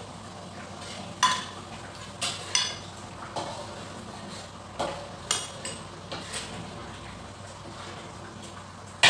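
A cooking utensil stirring beef in a wok, with sharp clinks and scrapes against the pan at irregular intervals over a faint, steady sizzle.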